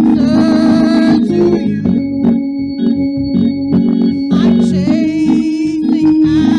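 Gospel praise-and-worship music: an organ holds sustained chords while a group of singers sings over it in places, with wavering held notes.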